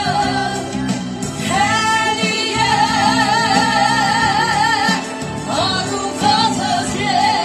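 A woman singing a song into a microphone over instrumental accompaniment. Her voice wavers in a strong vibrato, with a long held note from about one and a half seconds in to five seconds in.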